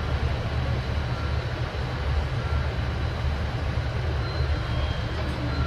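JR KiHa 85 series diesel railcar standing at the platform with its Cummins diesel engines running: a steady low rumble with a slight throb.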